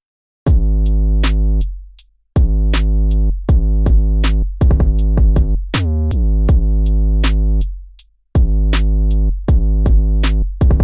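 Electronic background music with a drum-machine beat and a deep synth bass, starting about half a second in and dropping out briefly twice.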